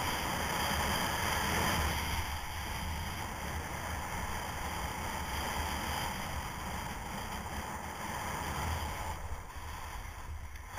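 Wind rushing over the microphone of a skier's action camera, with skis hissing and scraping over packed snow during a downhill run. The rush eases about nine seconds in as the skier slows.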